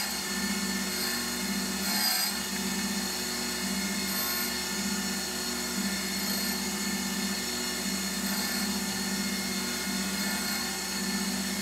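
LIP 515 surface grinder running, its wheel making a very light grinding pass over a steel parallel on the magnetic chuck. A steady hum pulses about once a second, with a high, steady whine and a faint grinding hiss.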